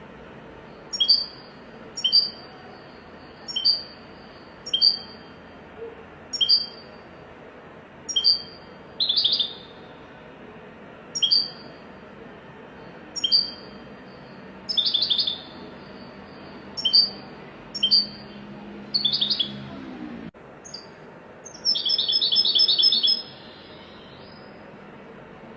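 Goldfinch calling: a sharp, high chirp repeated about once every second and a half, broken by short rattling trills, with a longer trill about two-thirds of the way through.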